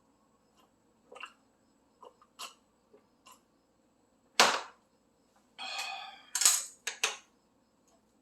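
Eating sounds at the table: scattered sharp clicks and knocks of chopsticks and tableware against dishes. The loudest knock is about four and a half seconds in, and a short rustle is followed by a quick cluster of knocks near the end.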